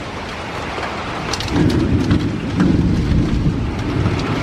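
Heavy rain falling steadily, with a low rumble of thunder that swells about a second and a half in and carries on.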